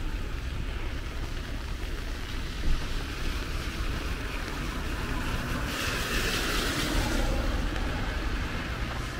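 Street traffic on wet roads: a steady low rumble of vehicles with tyre hiss, and a louder hiss lasting about a second and a half about six seconds in.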